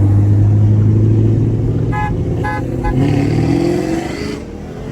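Camaro SS 1LE's 6.2-litre V8 running low and steady, with a car horn tooting three short times about two seconds in. Then the engine pitch rises as the car starts to pull away.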